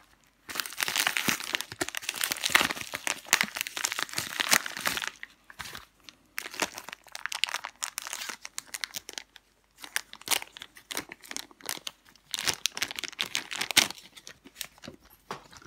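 Paper mailing envelope and clear plastic bag being handled and crinkled as a graded coin slab is unwrapped: a long stretch of rustling over the first five seconds, then shorter crinkles and sharp clicks.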